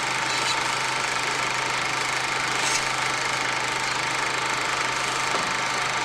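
Car engine running steadily: a constant low hum under an even noise.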